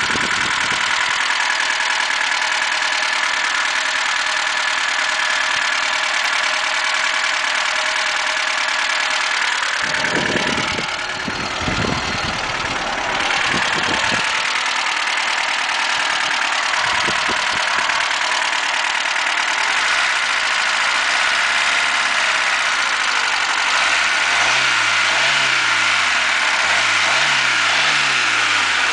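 Lada 21061's 1600 cc carburetted four-cylinder engine idling steadily. In the last few seconds the revs rise and fall several times as the throttle is blipped.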